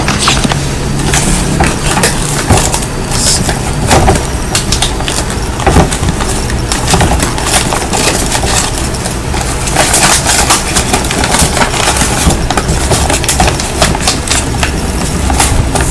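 Handling noise from the Intel Core i7 retail box being held and turned close to the microphone: scattered crackles and knocks over a steady low hum.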